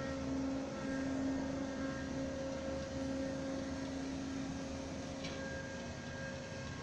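Steady mechanical hum of a motor-driven observatory dome shutter sliding closed, heard over a planetarium's speakers.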